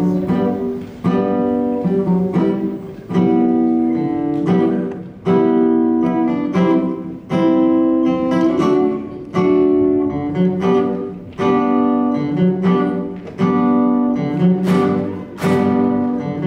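A small ensemble of acoustic guitars strumming chords in a slow, even rhythm, about one chord a second, each ringing out before the next.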